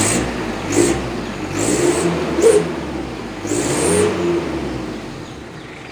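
Mitsubishi L300 pickup engine revved in about five quick blips, each with a hissing rush from the newly fitted Canter-style flexible exhaust pipe, the 'ngir-ngir' sound meant to imitate a Canter truck's turbo whine. It eases back toward idle near the end.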